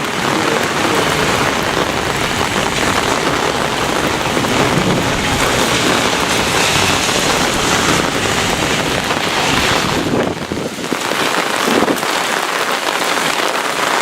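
Heavy thunderstorm rain pouring down in a steady, dense hiss, easing briefly about ten seconds in.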